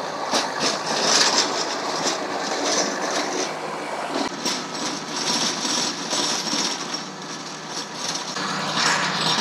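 Kubota compact tractor's diesel engine running steadily under load while its PTO-driven King Kutter rotary tiller churns through soil, with irregular clicks and knocks from the tines and clods throughout.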